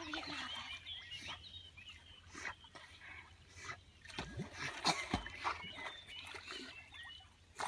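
Animal sounds: many short, high chirps scattered throughout, with a few knocks and low thumps in between.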